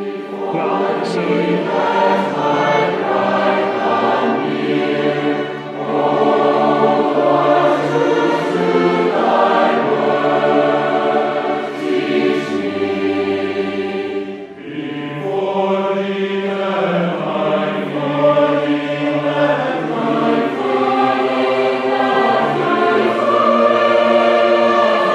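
A choir singing a hymn in several-part harmony, in long held phrases with brief breaths between them about five and fifteen seconds in.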